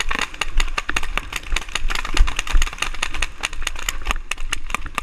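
Paintball markers firing: several guns popping rapidly and irregularly, many shots a second overlapping, over a low rumble.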